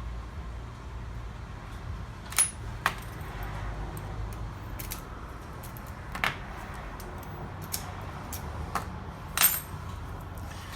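Small metal objects clinking and tapping together, a few sharp separate clinks with a brief metallic ring, over a steady low hum.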